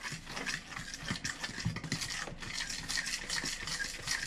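A hand stirring dry flour and salt around in a bowl: quick, irregular scratchy rustling strokes.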